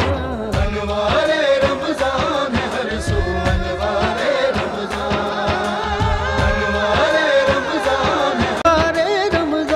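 Music: a song with a solo singing voice over drums.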